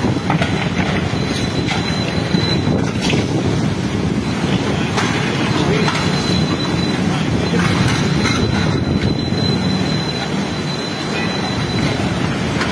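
Strong storm wind blowing in a loud, steady rush, with a few scattered knocks and a thin, steady high whine over it.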